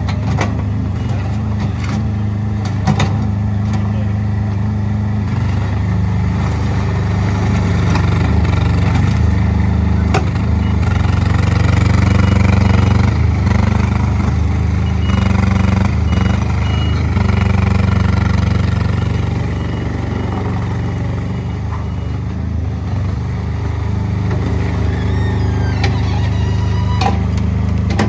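Compact skid steer loader's small engine running steadily, its revs rising and falling as the machine works, with a short run of high beeps about halfway through.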